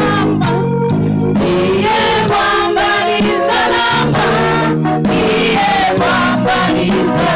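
A church worship team singing a gospel praise song in several voices, with instrumental backing.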